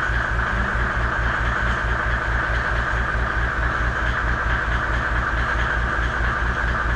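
Engine running steadily with an even low throb of about six pulses a second and a steady hiss above it, likely as something is being raised.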